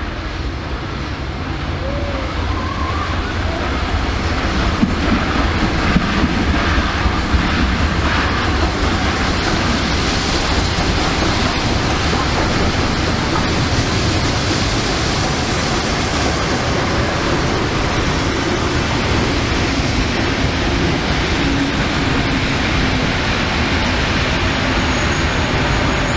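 Steam-hauled passenger train running through a station behind double-headed R-class steam locomotives. The noise grows over the first few seconds as the locomotives approach and pass, then holds steady and loud as the carriages roll by.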